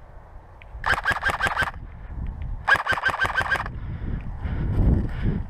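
Two short bursts of rapid airsoft gunfire, each about seven shots in under a second, with a short ringing tick on every shot. Wind rumble on the microphone builds toward the end.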